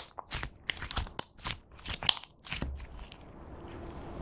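Lipstick-coloured clear slime squeezed and kneaded in the hands, giving a quick run of wet clicks and crackling pops. The clicks thin out and grow quieter about two and a half seconds in, as the slime is pulled out flat.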